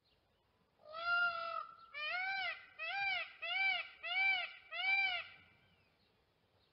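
Peafowl calling: one drawn-out cry, then a run of five short calls about two-thirds of a second apart, each rising and falling in pitch.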